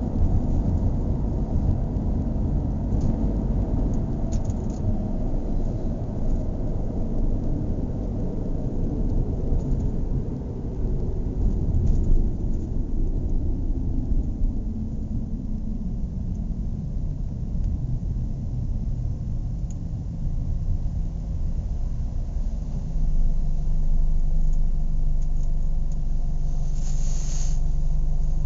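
Car engine running with a low rumble, its note sliding down over the first half as the revs fall, then idling steadily with an even hum from about three-quarters of the way in. A brief hiss near the end.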